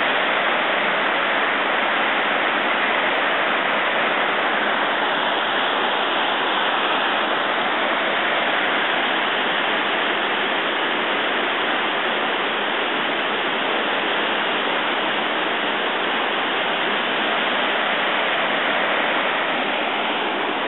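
Steady, unbroken rush of water cascading over rock in a gorge waterhole.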